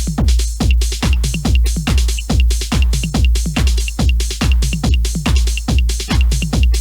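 Electronic dance music with a steady four-on-the-floor kick drum at about two beats a second and a ticking hi-hat between the kicks.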